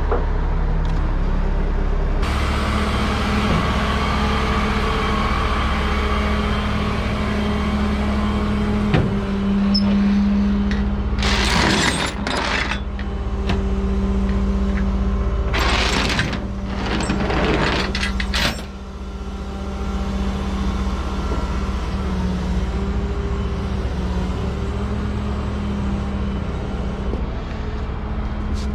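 Rollback tow truck's engine running steadily, with a few short bursts of noise about halfway through.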